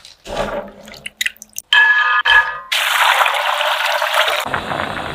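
Water pouring and splashing into a pot of chickpeas, a steady rush that starts a little under three seconds in. Before it come a few light clicks and a brief ringing tone.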